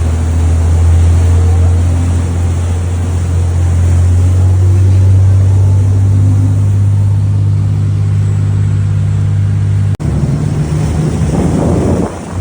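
Boat engine running with a steady low drone over the hiss of water. About ten seconds in the sound cuts abruptly to rougher splashing water and wind buffeting the microphone, with the engine fainter.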